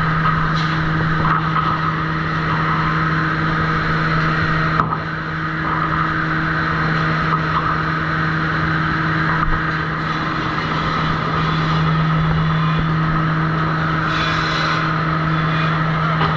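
Sawmill machinery at the trim saw running with a steady hum, and a sharp knock about five seconds in.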